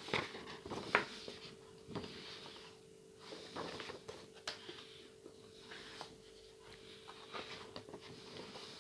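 Paper and card game-map sheets rustling and flapping as they are picked up and turned over by hand, with a few sharp taps and scrapes. A faint steady hum sits underneath.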